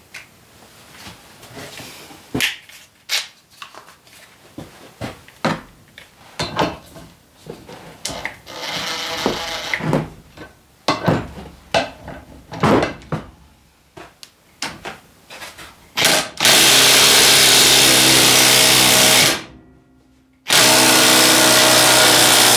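A series of clinks and knocks from tools being handled, then a small impact driver running in two loud bursts of about three seconds each, turning the puller bolt to draw a shaft bearing off a snowmobile chain-case shaft.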